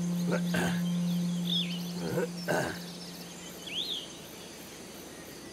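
Animated-film jungle ambience: insects chirping steadily, a couple of short bird chirps and a few brief sounds, over a steady low hum that fades out about four seconds in.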